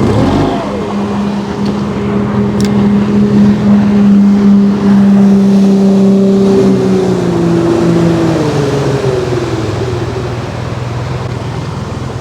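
Motorboat engine running fast as a boat speeds past: a steady drone that grows louder toward the middle, then drops in pitch and fades as the boat goes by.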